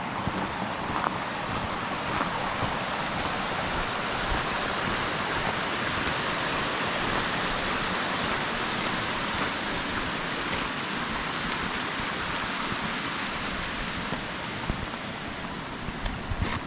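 Small mountain stream rushing over rocks, a steady hiss of running water that swells a little in the middle and eases near the end.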